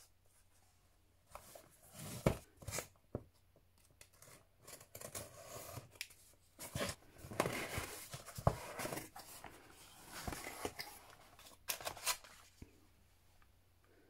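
Cardboard shipping box being handled and opened by hand: irregular scraping, rustling and tearing of cardboard and packing tape, with several sharp knocks as the box is set down and its flaps are pulled.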